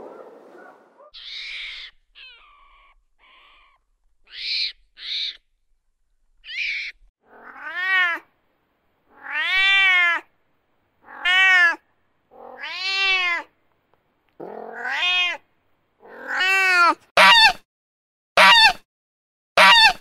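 A cat meowing over and over, a string of drawn-out meows that rise and fall in pitch. Faint short squeaky calls come before them, and near the end the meows turn shorter, louder and more frequent.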